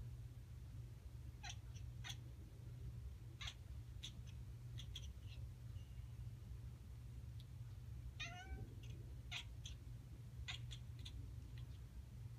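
Domestic cat giving short, sharp bark-like calls, about a dozen scattered through, with one longer falling call a little past the middle. This is the cat's excited calling at birds it is watching.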